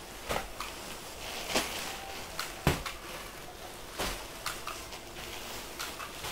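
Plastic-wrapped packs of clothing being handled, stacked and set down on a tile floor: crinkling plastic with scattered taps and thumps, the loudest knock about two and a half seconds in.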